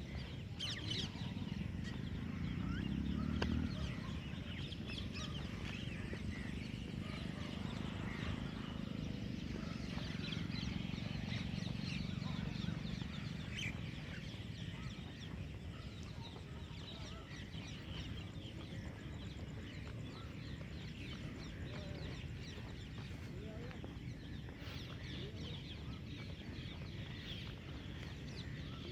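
Many small birds chirping in a dawn chorus, over a low steady rumble that eases off about halfway through.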